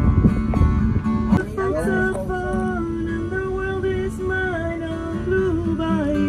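Live acoustic guitars strumming while a woman sings a melody over them, her voice coming in about a second and a half in with long held notes.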